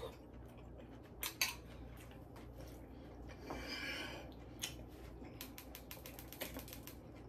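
Faint eating sounds: a metal spoon clicking against a glass bowl of noodles in scattered light taps, a couple of them louder about a second and a half in, with quiet chewing and mouth sounds.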